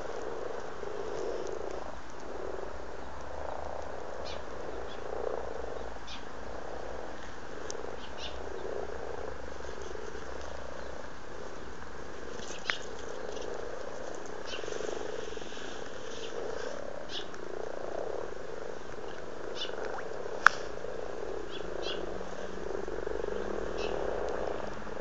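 A breeding chorus of common frogs: many soft, low, purring croaks overlapping without a break from several males in the pond. A couple of short sharp clicks cut in, the loudest about twenty seconds in.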